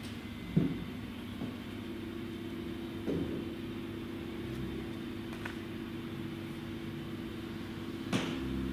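A steady low hum with a held low tone, broken by a few soft thumps: about half a second in, about three seconds in, and a sharper one near the end.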